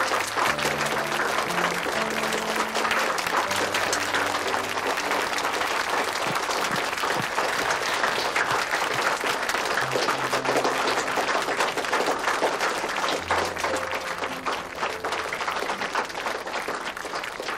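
A group of people applauding, with clapping throughout and easing off a little near the end. Soft background music of slow, held low notes plays underneath.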